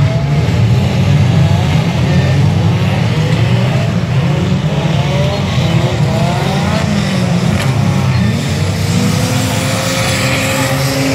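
Banger racing cars' engines running hard on a dirt-and-tarmac oval, a loud continuous rumble with repeated rising revs as the cars accelerate.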